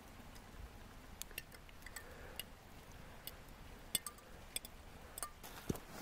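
Wood campfire crackling: scattered sharp pops and snaps at irregular intervals, with a duller knock near the end.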